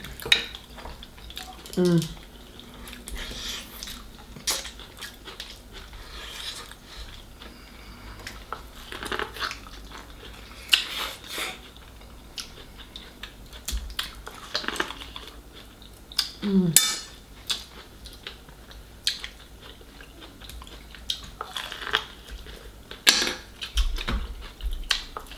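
Close-up eating sounds from a seafood boil: chewing and biting, with scattered clicks and clinks of utensils and dishes. Two brief vocal sounds come about 2 seconds and 17 seconds in.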